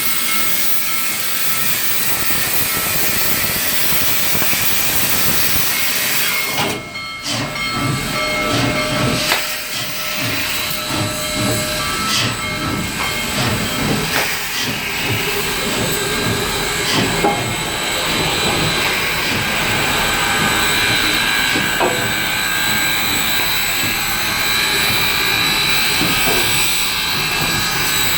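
Steady loud hissing noise, with a brief drop about a quarter of the way through.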